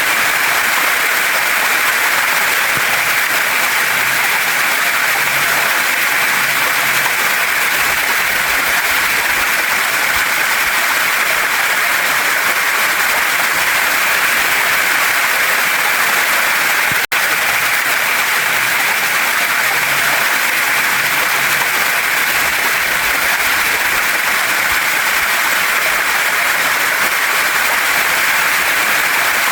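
Waterfall and stream water rushing steadily over rocks, a dense even splashing with no let-up apart from one split-second cut-out just past halfway.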